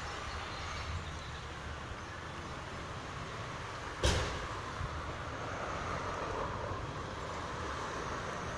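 Steady rumbling background noise with a single sharp knock about four seconds in.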